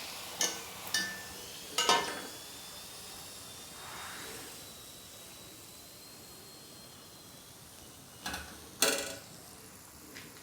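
Hot oil in a kadhai sizzling as fried snacks are lifted out, the sizzle dying down after the first couple of seconds. A metal spoon clinks against the pan three times early on and twice more, louder, near the end.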